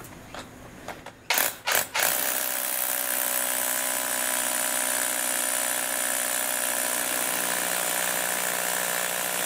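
Panasonic EZ78A1 cordless hammer drill boring into a concrete block. It gives two short bursts to seat the bit, then hammer-drills steadily for about seven seconds and stops.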